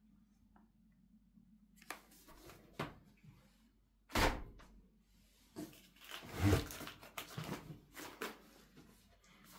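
Shrink-wrapped multipacks of canned cat food being lifted from a cardboard box and set down on a stack: a series of dull thuds and knocks, the loudest about four and six and a half seconds in.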